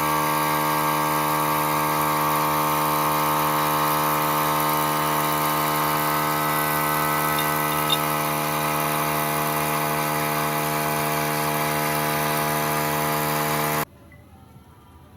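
Power tool motor running steadily at a constant pitch, then stopping abruptly near the end.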